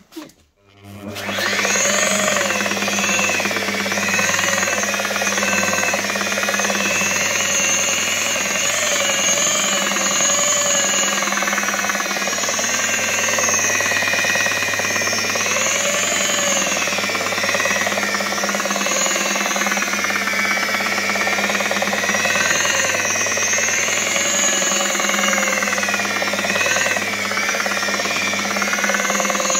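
Electric car polisher running with a thick, stiff pad on the painted bumper: a steady motor hum with a whine that slowly wavers in pitch. It starts about a second in and stops near the end.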